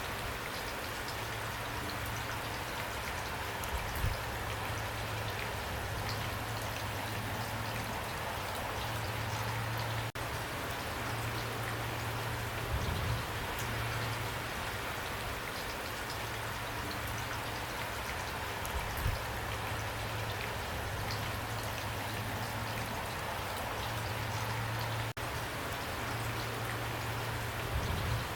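Steady rain falling and pattering on a surface, with a few low thuds and two very brief drop-outs.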